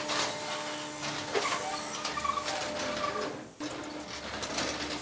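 Garage door opener running, a steady mechanical whir with a held hum as the sectional door travels. It breaks off briefly about three and a half seconds in, then starts again.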